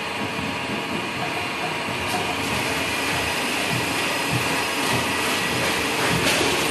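Rotary veneer peeling lathe running: a steady mechanical whir with a hum of fixed tones, getting a little louder near the end.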